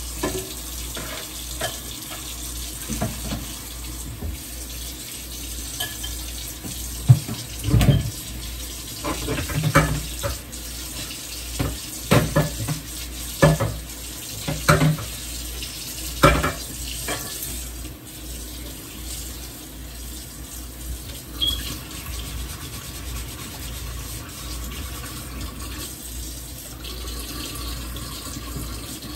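Kitchen tap running into the sink while a skillet is washed out, with a series of knocks and clatters of the pan against the sink during the first half.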